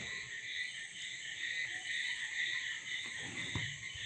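Steady high-pitched insect chorus throughout, with a faint rustle and crease of paper being folded by hand about three seconds in.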